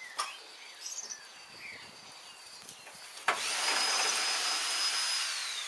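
A small electric motor, such as a power tool's, runs with a steady high whine for a little over two seconds, then winds down and stops near the end. A few light clicks come before it.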